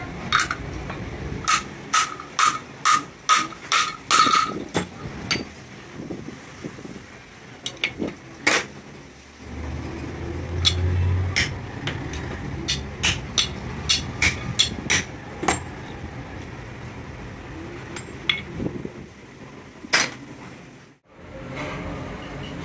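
Hammer blows on a steel crankshaft assembly held in a lathe chuck: sharp, ringing metal strikes about two a second, in two quick runs with a pause between them.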